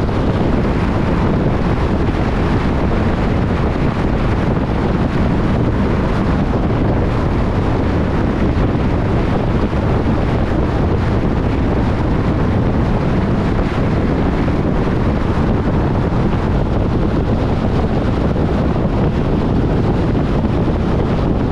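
Steady rush of wind and road noise from a moving car, with wind blowing over the microphone.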